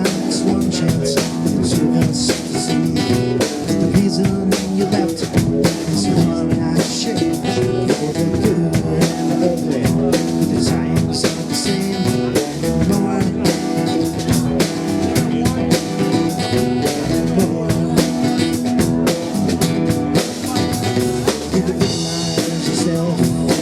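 Live band playing an instrumental passage with no singing: drum kit and guitar over a steady beat.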